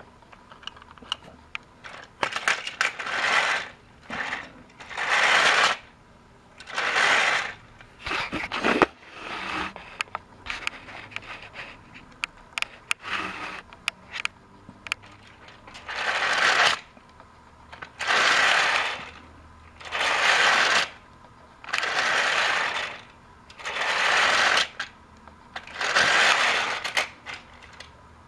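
Battery-powered TrackMaster toy train set running on plastic track, giving noisy bursts about a second long that recur roughly every two seconds, with scattered clicks between them in the first half.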